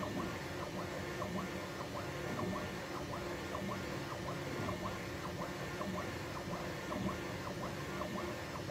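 A 3D printer running: a steady machine hum with a string of short, high chirps a few times a second.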